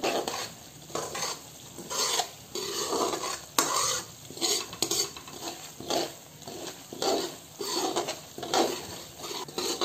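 Perforated metal spoon scraping and stirring semolina roasting in ghee in a metal kadhai, in repeated strokes about once or twice a second, with a faint sizzle of the ghee. The semolina is being stirred constantly so it doesn't stick to the bottom while it roasts to light brown.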